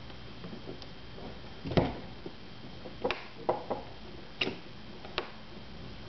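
About six irregular sharp clicks and knocks over a steady hiss, the loudest about two seconds in.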